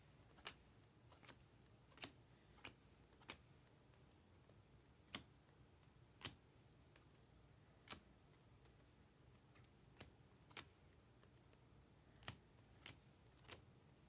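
Chrome baseball cards being flipped one at a time in the hand, making a short soft click every half second to two seconds, about a dozen in all, with near silence between.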